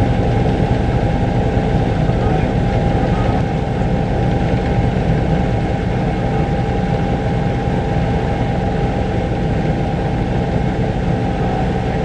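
Steady drone of a helicopter's engine and rotor heard from aboard the aircraft, holding a constant pitch with several steady tones and no change in level.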